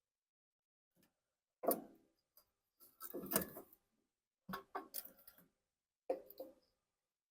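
Hand tools and small metal parts being handled and set down: short clicks and clatters in four brief bursts with quiet between, the loudest about one and a half and three seconds in.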